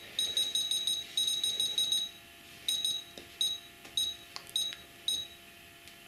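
Futaba T8FG radio transmitter beeping as its touch-sensor dial is stepped to change a throttle-curve value: short high beeps, first in two fast runs, then singly about every half second.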